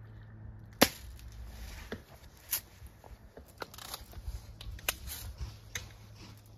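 A single sharp shot from a lever-action BB gun about a second in, followed by fainter clicks and knocks as the gun is handled.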